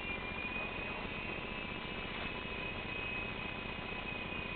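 E-flite Blade mini RC helicopter hovering: a steady, high electric-motor whine over rotor hiss, its pitch wavering slightly as the pilot holds it near the ceiling.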